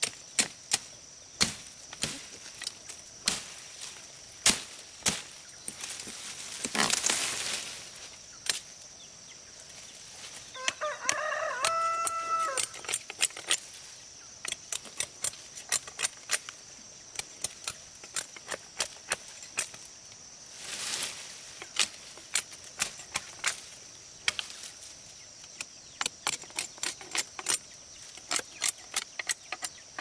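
Irregular sharp knocks of chopping, often several a second, with a rooster crowing once about eleven seconds in. Two brief rushing swishes come near the start and again past the middle, over a steady high-pitched whine.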